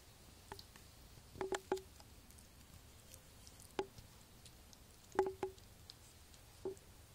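Faint scattered light knocks and taps, some in quick pairs, from a litter of Maine Coon kittens scuffling and pawing on a towel in a box.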